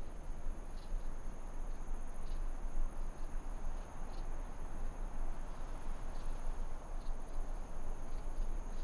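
Steady high insect chirring over a low rumble.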